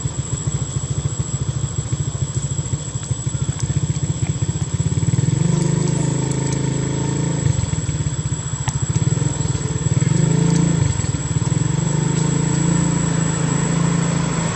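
A small engine idling: a steady low pulsing that grows a little louder and fuller about five seconds in, with a thin steady high tone over it.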